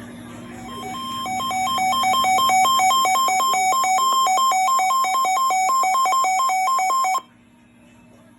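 Weather radio receiver's alert alarm going off for an incoming flash flood warning: an electronic beeping that switches rapidly back and forth between two pitches. It swells over its first second, holds steady, then cuts off suddenly near the end, leaving a faint hiss and a steady low hum.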